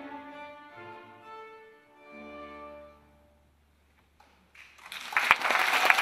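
Piano accordion and string orchestra holding the final chords of a piece, which fade out about three seconds in. After a short hush, audience applause breaks out and is loud by the end.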